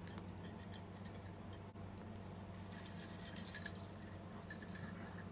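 Faint handling noise of fingers working thin copper wires through the pins of a plastic CRT tube base: light ticks and rustles, denser for a moment around the middle, over a steady low hum.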